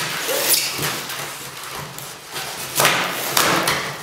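Knife cutting along the packing tape of a cardboard shipping box, and a cardboard flap being pulled open: scraping, tearing cardboard noise with a few knocks, loudest about three seconds in.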